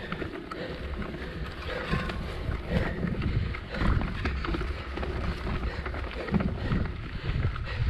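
Mountain bike riding a rough dirt singletrack: tyres rumbling over the ground, with the bike clattering and knocking over bumps, and wind buffeting the camera's microphone.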